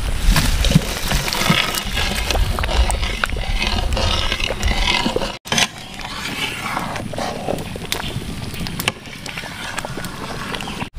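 Thick curry bubbling at the boil in a pan, a steady seething with scattered pops and knocks, possibly with a spoon scraping the pan. The sound drops out for an instant about halfway through.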